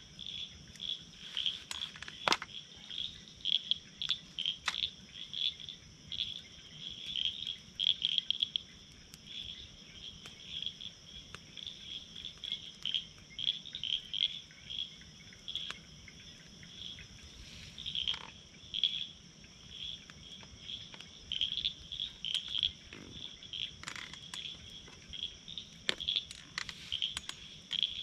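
Dusk chorus of frogs and insects: rapid high-pitched chirps repeating without a break over a steady high hum. A twig campfire crackles and pops now and then.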